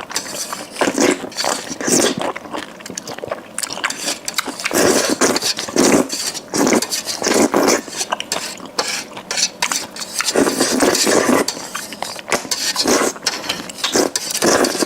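Close-miked eating: irregular chewing and bites, with utensils clinking against dishes.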